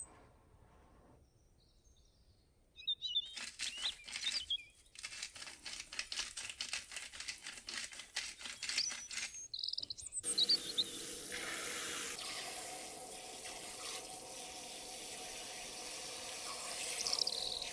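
A salt grinder twisted over a glass bowl of scallops gives a quick run of grinding clicks, about four a second, for some seven seconds. Then, from about ten seconds in, cold tap water runs steadily into the bowl in a stainless-steel sink.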